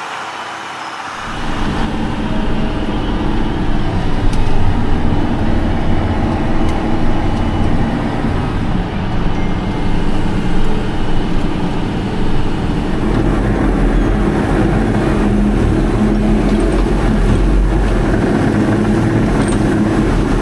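Big diesel engine of a large farm machine running steadily at working revs, coming in suddenly about a second in after a quieter first second.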